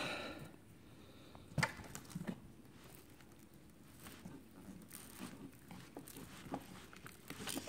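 Faint, scattered clicks and crackles of a thread being sawn under a glued MacBook Pro battery cell to cut through its adhesive, with a sharper click about one and a half seconds in. A short rush of noise fades away at the very start.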